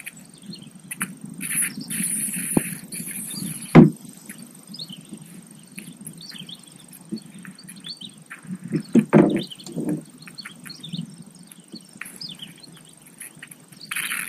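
Knocks and thumps against a boat as a just-caught largemouth bass is handled: one sharp knock about four seconds in and a cluster of thumps around nine seconds. Insects and birds call steadily in the background.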